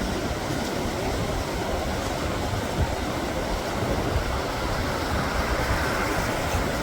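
Strong wind buffeting the microphone with a steady, uneven rumble, over the continuous wash of ocean surf.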